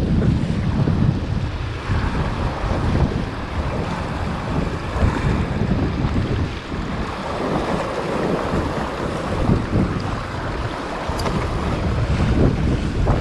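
Wind buffeting the microphone over the wash of sea waves against rocks, loud and gusty.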